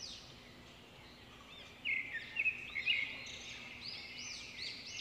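Birds chirping: quick, repeated short notes that rise and fall, getting louder about two seconds in.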